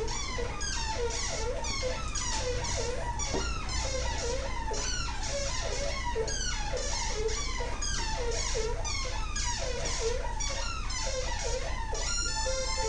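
Korg analog synthesizers playing an improvised loop of short, swooping pitch glides, about two a second, over a steady low drone. Near the end it switches to a stepped, beeping melodic sequence.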